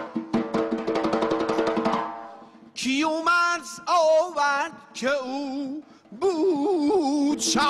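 Music: quick, even drumming over a held tone, then about three seconds in a solo voice singing long ornamented phrases with a wide, wavering vibrato.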